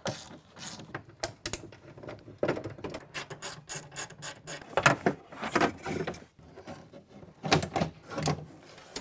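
Irregular metallic clanks, rattles and scrapes as the broken window regulator, its cable snapped, is worked out through the openings in a Chevy Silverado's door, with louder knocks about halfway through and again near the end.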